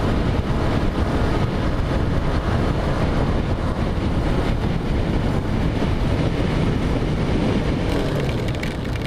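Wind rushing over the microphone mixed with the Yamaha YZF-R3 motorcycle's engine and tyres at highway speed, a loud, steady rush. About eight seconds in it drops a little and a run of quick clicks comes through.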